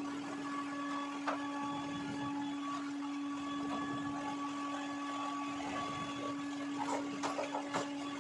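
Steady mechanical hum at one constant pitch, with a few short knocks and rustles near the end.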